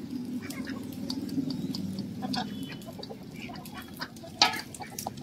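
Domestic hens feeding from a metal bowl and plate: beaks tapping and pecking at the food, over low clucking. One sharp tap, the loudest, comes about four and a half seconds in.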